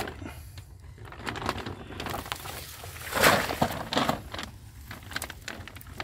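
Plastic sack and dry reeds rustling and crinkling as a large tilapia is handled and put into the sack, with a louder crackling burst about three seconds in, over a low steady rumble.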